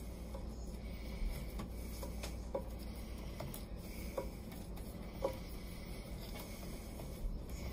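Hand screwdriver tightening a hose clamp on the macerating toilet's pump hose: faint, short clicks at irregular intervals, about eight of them, over a low steady hum.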